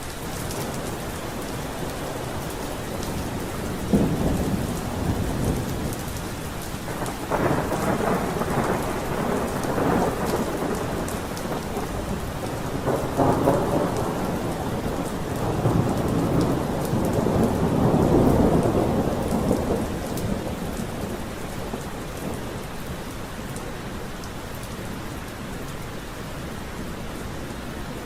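Steady heavy rain with several rolls of thunder rumbling through it; the longest and loudest roll comes about two-thirds of the way through, then the rain carries on alone.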